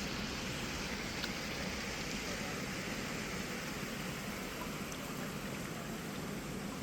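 Steady rush of shallow river water running, with a couple of faint clicks.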